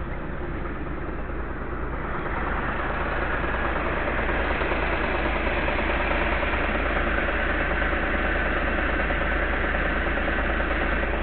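An engine running steadily, growing louder about two seconds in and then holding at that level.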